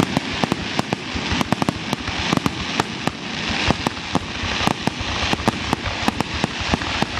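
Fireworks grand finale: a rapid barrage of shell bursts, several bangs a second, over continuous crackling.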